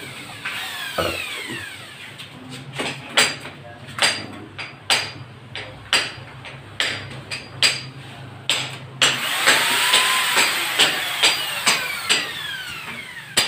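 Hammer blows on a ceiling-framing job, about one a second, coming quicker in the last few seconds. About nine seconds in, a power tool's motor whirs up and winds down briefly over the blows.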